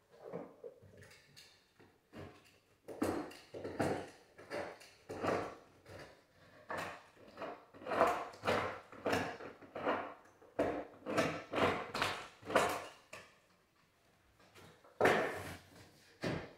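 Repeated knocking on the wooden stair and the laminate stair pieces as they are worked into place, about two knocks a second for some ten seconds, then a pause and another knock near the end.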